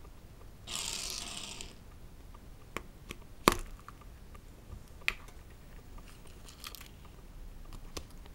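Hands handling a yellow plastic Kinder Surprise capsule and its contents: a brief rustle about a second in, then a sharp click as the capsule halves come apart, the loudest sound. Lighter plastic clicks follow, and a short crinkle of the folded paper leaflet near the end.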